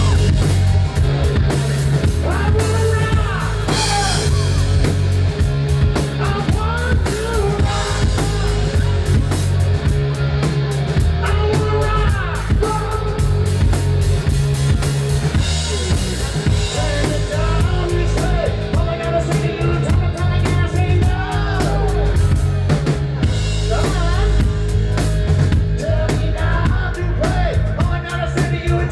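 Live rock band playing loud: a drum kit with bass drum and snare driving a steady beat under electric guitars and bass, with a singer's voice over the top.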